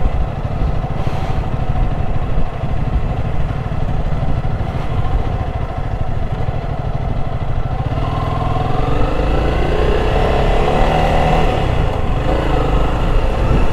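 Honda CRF300 single-cylinder engine running under way on a gravel road, over steady wind and road noise. From about eight seconds in the revs climb, then drop back near the end.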